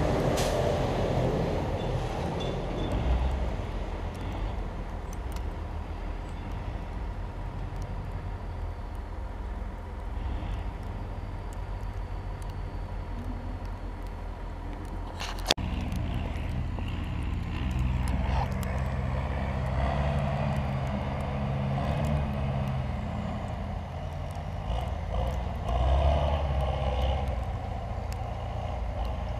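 Heavy diesel machinery running steadily with a low rumble. There is a single sharp click about halfway through, after which the engine runs louder and rougher.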